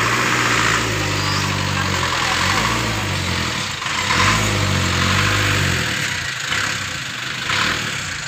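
Vehicle engines running at low revs, heard from inside a slow-moving car: a low engine hum that swells and eases a few times and fades near the end, over a steady hiss of tyre and road noise.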